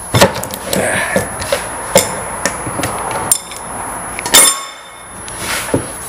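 Irregular metal knocks and clanks from working the top part and piston loose on a hydraulic cylinder, with one louder ringing metallic strike about four seconds in.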